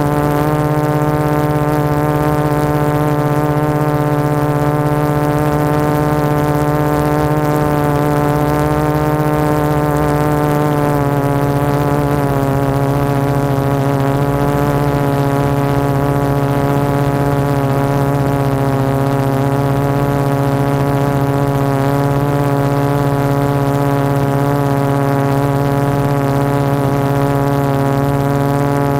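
Hovering 450-size quadcopter, its four MultiStar 2212 920kv brushless motors spinning 12x4.2 carbon-fibre props, heard from on board the frame: a loud, steady buzzing hum whose pitch wavers slightly as the flight controller trims the motors, dipping a little about twelve seconds in.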